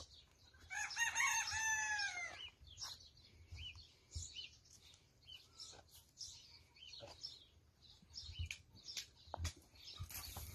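A rooster crows once, about a second in, one call of a little over a second that falls in pitch at its end. Small birds chirp at intervals.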